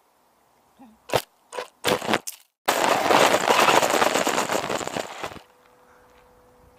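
RC buggy on loose gravel and dirt: a few sharp knocks, then a few seconds of loud crackling and rattling of grit against the car, then a faint steady hum near the end.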